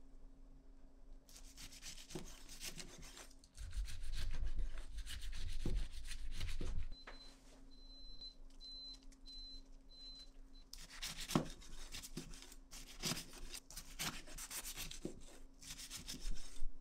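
Kitchen handling sounds: rubbing and scraping, a few seconds of low rumble, then a row of about six short, high electronic beeps from an appliance's controls, followed by clinks and clatter.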